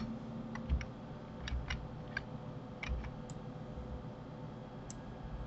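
Scattered, irregular clicks of a computer mouse and keyboard, about eight in all, over a faint steady hum.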